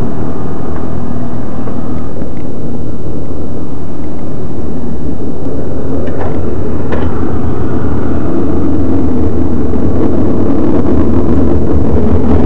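Kawasaki sport bike's inline-four engine running steadily, loud and close to the microphone, with the lower tones strengthening about eight seconds in.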